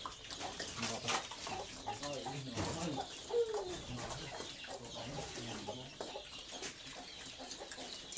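Chickens clucking in short calls, one falling call a few seconds in, over a steady run of quick clicks and smacks from pigs eating.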